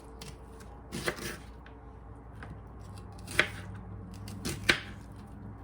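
Kitchen knife chopping a red onion into chunks: a handful of separate cuts at an uneven pace, the sharpest a little past the middle.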